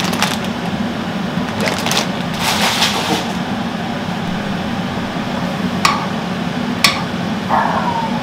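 Pan of pasta water at a rolling boil on a lit gas hob: a steady low hum, with a couple of rustles about two seconds in and two sharp clicks near the end.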